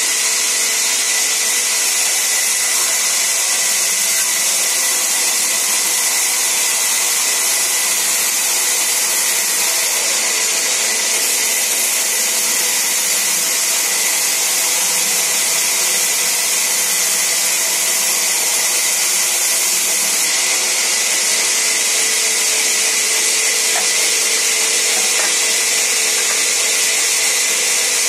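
Large sawmill band saw running and ripping long, thin wooden planks: a loud, steady high-pitched hiss with a faint hum beneath.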